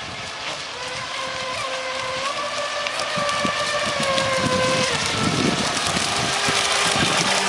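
RC model boat's motor whining steadily over the hiss of water spray, growing louder throughout. The pitch dips briefly about five seconds in and begins to rise again near the end.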